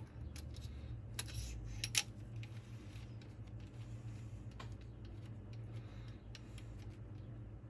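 Metal clicks and clinks of rocker parts being handled on a rocker shaft over a cylinder head, with one sharp click about two seconds in and a few faint ticks after, over a low steady hum.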